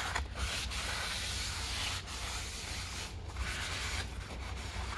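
A cloth rubbing and wiping over a new cross-drilled brake disc, a steady scrubbing noise broken by a few short pauses between strokes, as the disc's oily anti-rust coating is cleaned off.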